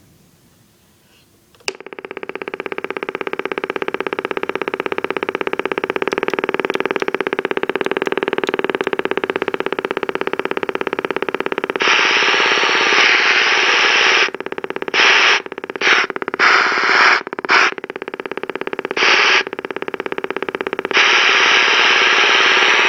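Radio Shack TRC-495 base CB radio's speaker motorboating: a rapid, steady putt-putt pulsing that starts suddenly about two seconds in, the sign of a bad capacitor. About halfway through, receiver static hiss joins it and cuts in and out several times as the squelch knob is turned.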